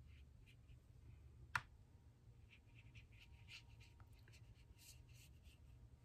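Faint, short, scratchy strokes of a watercolor brush wetting paper, coming as a run in the second half. One sharp click sounds about one and a half seconds in.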